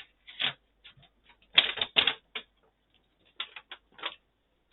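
Folded paper playmat being opened out: stiff paper crackling and rustling in irregular clusters, loudest about one and a half to two seconds in.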